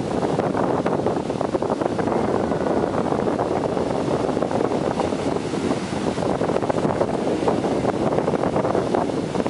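Ocean surf breaking and washing up the beach, with wind buffeting the microphone in an unsteady rush.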